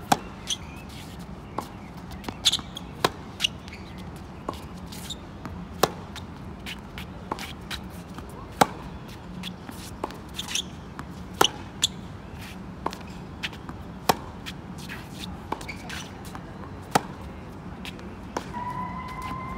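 Tennis rally: a tennis ball struck hard off a racket at the near end about every three seconds, with fainter pops of the far player's shots and the ball bouncing on the hard court in between. A siren starts to wail in the background near the end.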